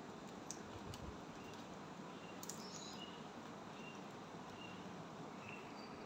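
Indian ringneck parakeet picking at a palm frond: a few faint clicks, and short, faint high chirps every second or so over a steady hiss.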